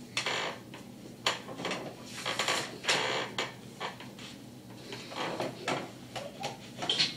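Paper rustling as magazine pages are handled and turned, in a run of short, uneven bursts.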